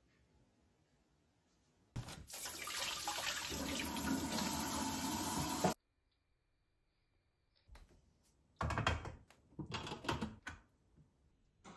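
A steady rush of running water, like a kitchen tap, for a few seconds that cuts off abruptly. After a pause comes a short run of knocks and clinks as a lid is set on a stainless steamer pot.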